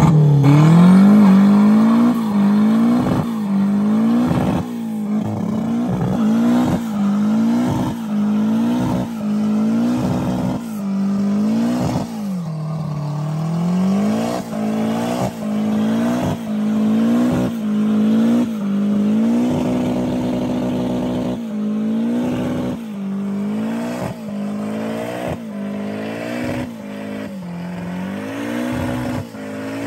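Classic Toyota Corolla doing a burnout: the engine is revved hard over and over, its pitch climbing, holding briefly at the top and falling back about once a second, while the rear tyres spin on the pavement.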